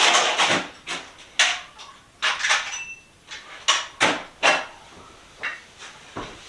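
Metal hand tools being rummaged through: a quick run of short clanks, rattles and scrapes, with a brief metallic ring about two and a half seconds in.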